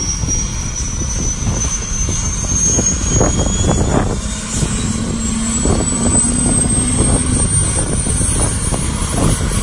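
Bell UH-1H Huey's Lycoming T53 turboshaft whining and rising slowly in pitch as the engine spools up, over the low rush of the turning main rotor.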